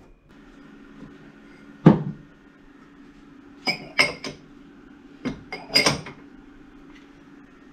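Glass tumblers being handled on a wooden shelf, clinking against each other and the shelf in two quick clusters of about three sharp ringing clinks each. A single thud comes about two seconds in.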